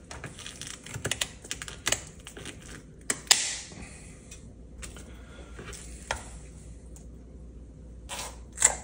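Spiny fins being cut off a whole red snapper, heard as a run of short crisp clicks and crunches. They come thick for the first few seconds, then turn into a few scattered cuts, with a louder one near the end.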